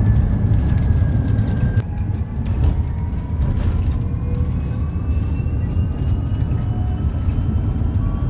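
A steady low engine-like rumble, with faint thin whining tones gliding slowly in pitch.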